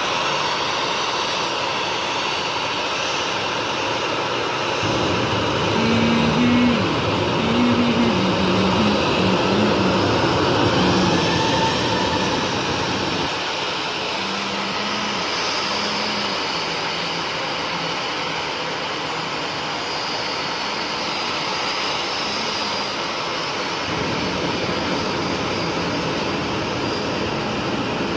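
Jet airliner engine noise at an airport: a steady, dense roar with a high whine on top. Its low end changes abruptly about 5, 13 and 24 seconds in.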